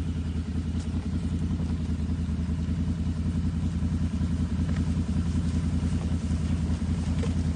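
A steady low engine drone, like a motor running at idle, even in pitch and level throughout.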